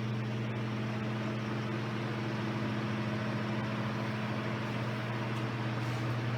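1934 Emerson Type 73668 16-inch oscillating table fan running on high speed while oscillating: a steady motor hum with the even rush of air from the blades.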